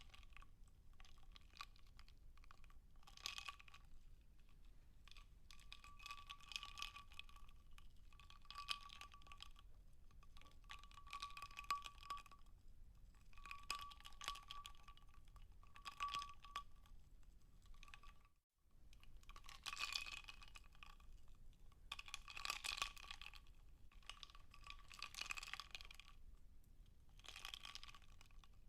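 Ice cubes clinking in a glass of water, in small clusters of clicks every two to three seconds, each with a faint ringing of the glass. The sound cuts out for a moment about eighteen seconds in.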